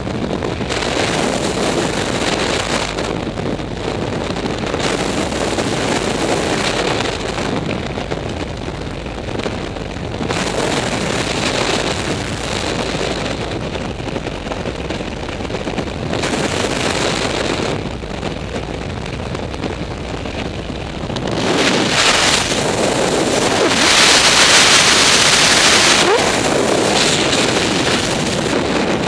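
Freefall wind rushing over a skydiver's head-mounted camera microphone: a loud, steady rush that swells and eases every few seconds, growing louder and hissier about three quarters of the way in.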